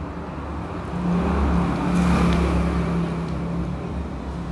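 A motor vehicle's engine humming steadily in the background, swelling about a second in and easing off near the end.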